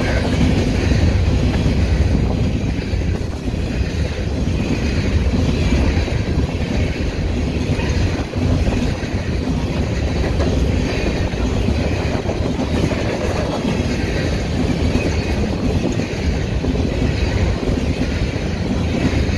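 Freight train of covered hopper cars rolling past: a steady, loud rumble and clatter of steel wheels on the rails.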